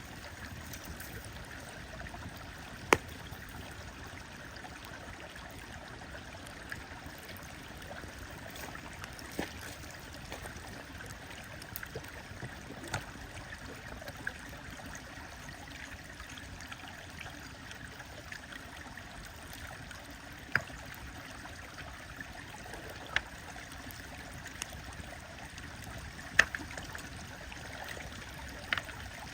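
A stream flowing steadily, with a wood fire crackling beside it and giving sharp, scattered pops every few seconds; the loudest pops come about three seconds in and near the end.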